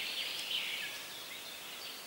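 Small songbirds chirping and trilling, busiest in the first half second, over a steady hiss of flowing river water.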